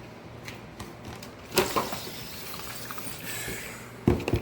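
Hands handling packaging or hardware: a sharp knock about a second and a half in, then rustling and sliding for a couple of seconds, and a quick few knocks near the end.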